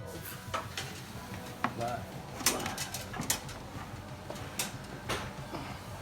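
Scattered light metallic clinks and knocks of tools and metal parts being handled, about half a dozen sharp ticks spread irregularly.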